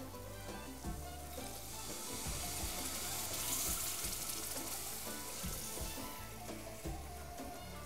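Water poured from an enamel jug into a pot of hot shrimp-and-tomato sauce, splashing and sizzling as it hits, from about a second and a half in until near the end. Background music plays throughout.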